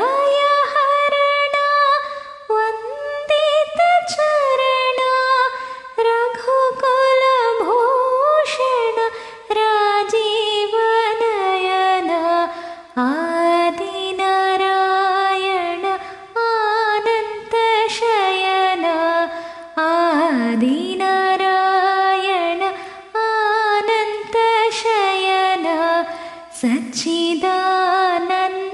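A woman singing a devotional song to Sri Rama, with long held notes that bend and glide between pitches, in phrases broken by short breaths.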